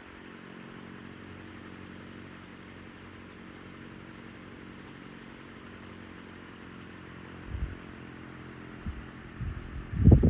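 Hunter CG16 16-inch commercial-grade table fan running, with a steady motor hum under the rush of air. Its airflow buffets the microphone briefly about three quarters of the way in, and harder near the end.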